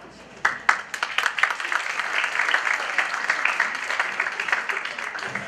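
Audience applauding: a few sharp claps about half a second in, then dense clapping from many hands.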